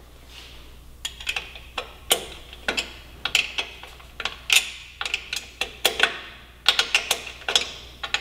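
Metal hand tools clicking and clinking, sharp irregular clicks about one or two a second, some in quick pairs.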